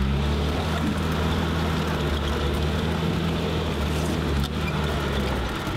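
Land Rover 4x4's engine running while driving off-road. The revs pick up slightly at the start and then hold steady.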